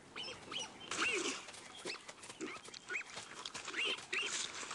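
Warthog piglets giving short high squeaks and squeals, several a second, with a few lower calls mixed in, as they bump and push one another.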